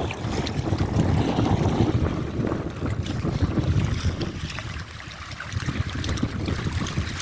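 Water washing at a beach, with wind buffeting the microphone in a rough low rumble. It eases for a moment about halfway through, then picks up again.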